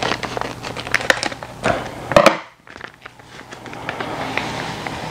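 Packets of dry yeast crinkling as they are opened and handled, in a quick run of sharp rustles over the first couple of seconds, then a steady soft hiss.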